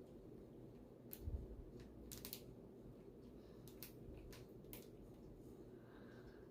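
Near silence over a low room hum, with a few faint clicks and rustles of packaging and small items being handled.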